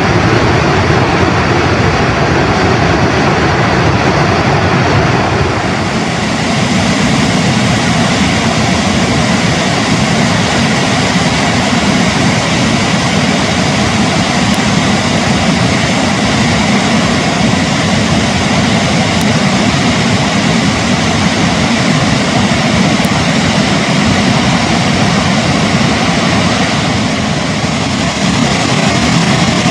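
Victoria Falls, the Zambezi's water plunging into the gorge: a loud, steady rush of falling water, a little brighter from about six seconds in.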